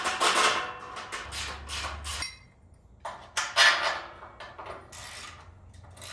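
Irregular knocks, clanks and scraping of metal parts being handled during assembly of a steel home-gym rack, some with a brief metallic ring.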